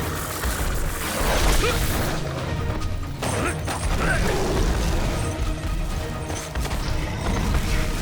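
Animated action-scene soundtrack: music mixed with mechanical clanking and crashing sound effects.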